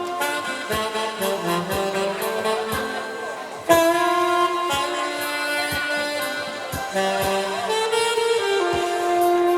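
A brass horn playing a melody of long held notes over a backing track with a steady beat; a loud new phrase comes in about four seconds in.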